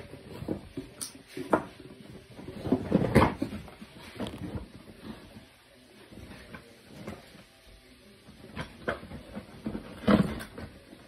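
Plastic toys being handled: scattered knocks and clatters, the loudest about three seconds in and a cluster near the end, with a quieter stretch in between.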